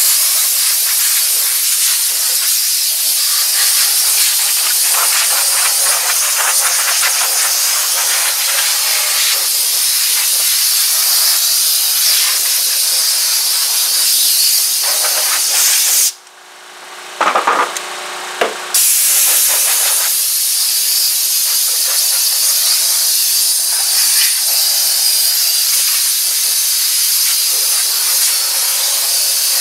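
Compressed-air blow gun blasting a steady, loud hiss of air over a freshly rinsed engine bay, blowing the water off. About sixteen seconds in the air cuts off for a couple of seconds, with a few short blasts, then runs steadily again.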